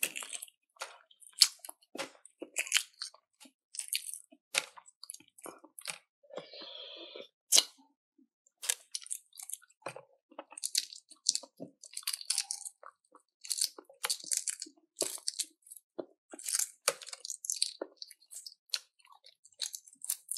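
A person chewing crunchy food close to the microphone: a steady run of irregular, crisp crunches, with a brief rustle about six seconds in.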